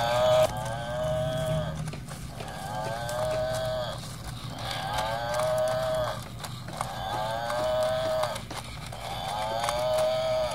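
Battery-powered toy water buffalo walking, its built-in speaker playing a recorded moo about every two and a half seconds. Each moo slides down in pitch and then holds, over the low, steady whir of its walking motor.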